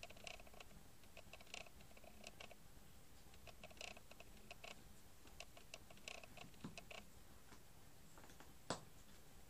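Faint irregular clicks and taps of a small plastic solar garden-light casing being handled and turned in the fingers, with one sharper click near the end.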